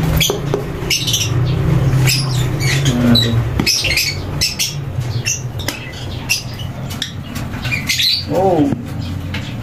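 African lovebirds giving many short, sharp, high-pitched squawks and chirps, over a steady low hum. About eight seconds in there is one lower call that falls in pitch.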